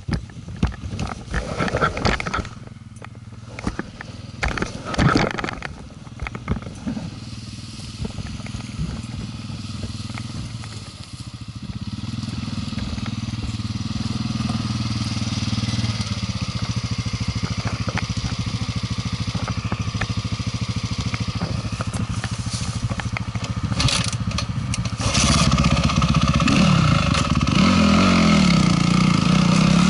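Small off-road vehicle engine running, with a few knocks and clunks in the first seconds. It grows louder about twelve seconds in, and near the end it revs up and down as the ride gets under way.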